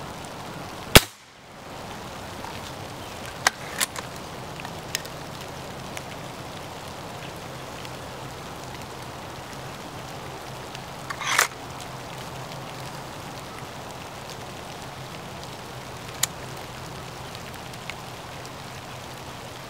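Hatsan Model 95 SAS break-barrel spring-piston air rifle, fitted with a suppressor, fires once about a second in with a single sharp crack. Quieter clicks follow, with a short rasp near the middle as the rifle is cocked by its barrel and loaded with a pellet, over a steady faint hiss.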